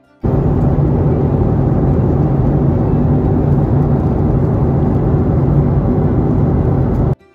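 Steady, loud roar of a jet airliner's cabin noise in cruise flight, engines and airflow, starting abruptly just after the start and cutting off abruptly near the end.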